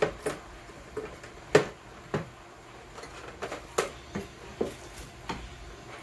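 Handling noise from working with the dehumidifier's plastic parts and drain hose: a string of irregular light knocks and clicks, about one or two a second.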